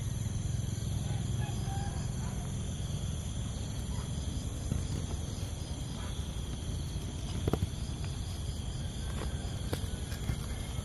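Steady insect chirring over a low rumble, with a sharp click about seven and a half seconds in.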